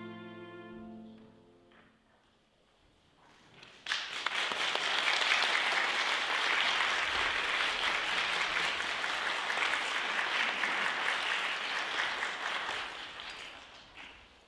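The final held chord of three cellos dies away in the first second or two. After a short quiet, an audience breaks into applause about four seconds in, clapping steadily for about nine seconds and fading near the end.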